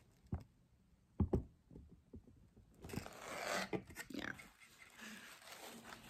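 A few knocks and bumps as the camera is handled and set in place, then a second or two of rustling and scraping as hands move items in a cardboard box.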